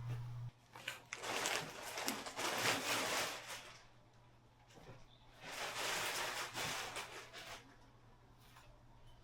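New bedding being handled, with two stretches of fabric and packaging rustling: one about a second in, the other about five and a half seconds in.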